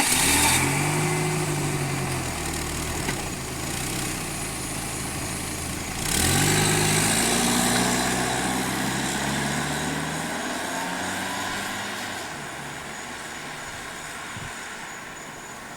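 Car engine revving up at the start and again about six seconds in, each time settling back down, the sound slowly growing quieter toward the end.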